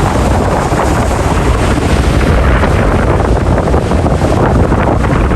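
Ocean waves washing steadily, with wind buffeting the microphone in a low rumble.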